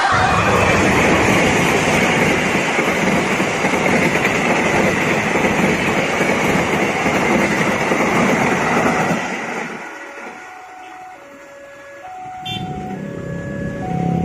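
Indonesian KAI passenger train passing close by: a loud, steady rush of wheels on rail that fades out about ten seconds in. After it, a simple electronic tune of short single notes starts, over a low rumble that builds again near the end.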